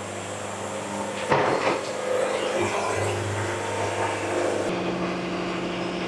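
Steady hum of the band sawmill's machinery running, with a few wooden knocks and scrapes about a second in as freshly sawn walnut boards are pulled back off the log.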